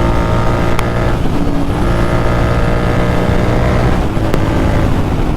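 Royal Enfield Continental GT 650's parallel-twin engine through a Red Rooster aftermarket exhaust, running under way with a steady, loud note whose pitch shifts slightly about a second in and again around four seconds in.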